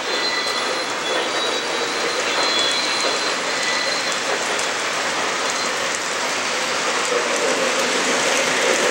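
O scale model train, a K-Line NYC Hudson steam locomotive pulling heavyweight Pullman cars, rolling on three-rail track. It makes a steady rushing rumble with faint high wheel squeals, and it grows louder near the end as it comes toward the tunnel mouth.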